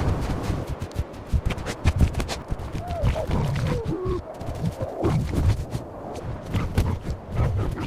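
Animals fighting: a rapid jumble of thuds and scuffling knocks, with a few short bending cries about three to four seconds in.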